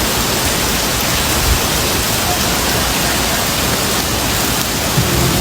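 Heavy rain pouring down, a steady dense hiss with no breaks.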